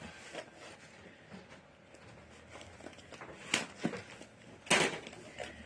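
Packaging being handled and rustled, with two short, louder rustles in the second half.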